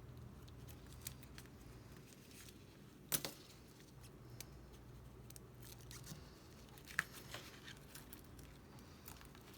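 Faint, scattered clicks and light scraping of a hobby knife working the adhesive loose around an iPad's home button and its ribbon cable, with two sharper ticks about three and seven seconds in, over a low steady hum.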